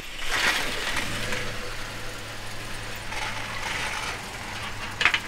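Car on a wet road: a steady low engine hum, with tyre hiss swelling twice. A brief clatter of clicks comes near the end.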